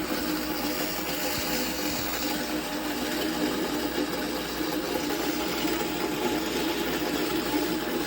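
Kafatek Monolith Flat coffee grinder running at a low 350 RPM, its 75 mm Shuriken LM flat burrs grinding coffee beans: a steady motor hum over an even grinding noise.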